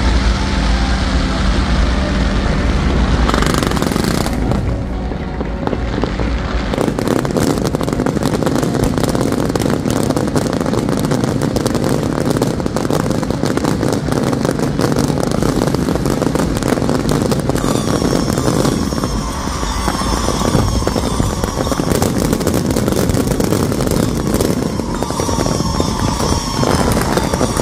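Fireworks crackling densely and without a break, with whistles gliding through the second half, over a low rumble in the first few seconds.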